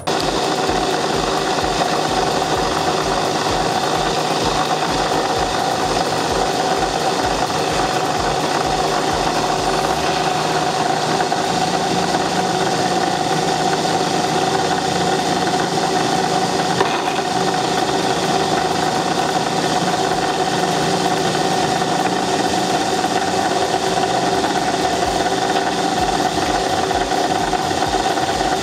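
A motor-driven machine running steadily at constant speed, with an even whine that does not change.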